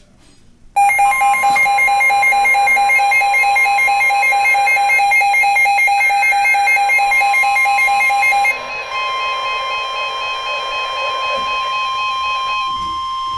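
NOAA Weather Radio alert: the steady warning alarm tone that announces a new warning, with a weather radio receiver's loud, rapidly pulsing alarm beeps over it, starting about a second in. The beeping changes pattern past the middle and stops near the end, while the steady tone carries on.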